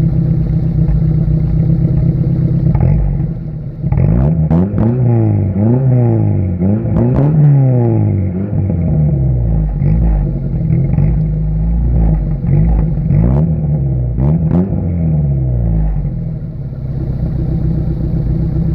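1988 Toyota pickup's 22RE four-cylinder engine idling through a glasspack exhaust, then blipped up and down again and again from about four seconds in, settling back to a steady idle near the end.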